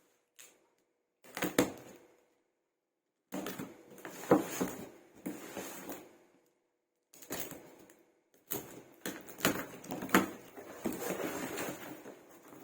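Cardboard box and packaging being opened and handled in separate bursts of scraping and rustling with sharp knocks, as a 12-inch subwoofer is unboxed.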